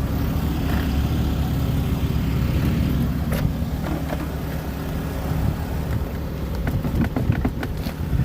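A vehicle engine running steadily, with a sharp click about three and a half seconds in and a quick run of clicks near the end.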